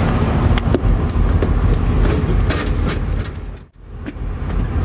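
Low, steady rumble of a sportfishing boat under way at trolling speed, its engines mixed with wind buffeting the microphone, with a few light clicks. The sound cuts out sharply for an instant about three-quarters through.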